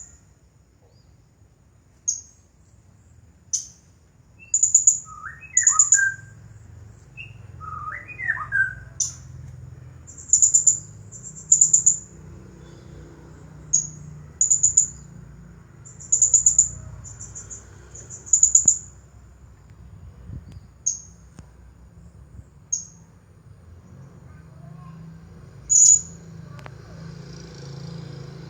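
Blue-crowned hanging parrot (serindit) calling: short, very high-pitched chirps, singly or in quick runs of two or three, repeated every second or two. A few lower whistled notes come about five to nine seconds in.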